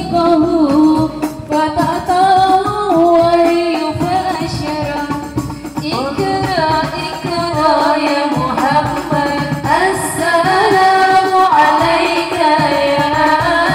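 A woman singing into a microphone over a sound system, her melody bending and ornamented, with other voices singing along.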